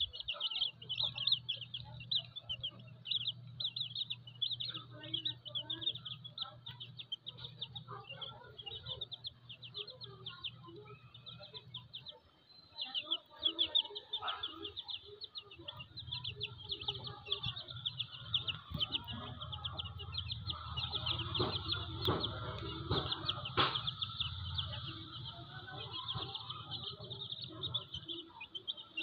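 A brood of chicks peeping rapidly and continuously, with a hen clucking softly among them over a low steady hum. A single sharp knock about three-quarters of the way through.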